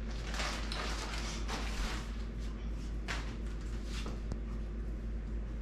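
Clear plastic mailer bag crinkling and rustling in several short bursts as a jacket is pulled out of it.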